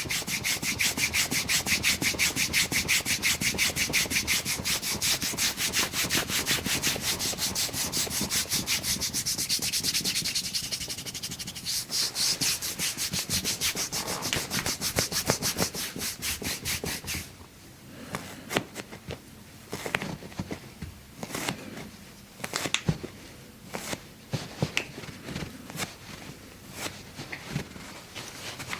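Fast, even rubbing strokes, about five a second, for roughly seventeen seconds with a brief break near twelve seconds. After that, a scattering of sharp single clicks and knocks.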